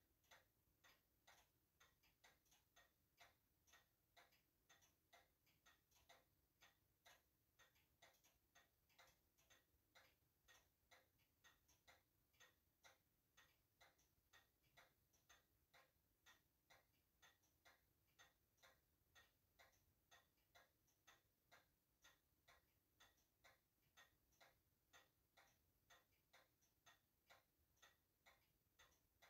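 Very faint, steady ticking of a running timepiece, about two or three ticks a second, evenly spaced.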